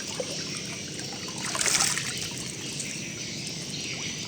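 Water trickling and splashing, with one louder splash about a second and a half in. A thin, steady high insect trill runs behind it.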